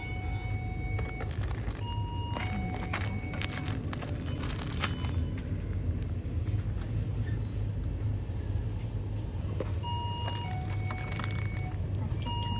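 Two-note electronic door chime (a higher tone falling to a lower one), sounding in pairs about 2 and 10 seconds in, over a steady low hum of store refrigeration. Crinkling of plastic plaster packets as they are handled on the shelf between chimes.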